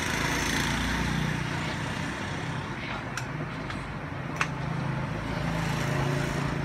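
A motor vehicle engine running steadily amid street traffic noise, with a few sharp clicks about three to four and a half seconds in.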